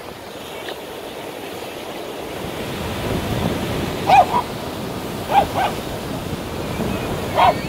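Ocean surf washing onto the beach, swelling about halfway through, with a dog's short barks in three quick groups over the second half, the loudest sounds.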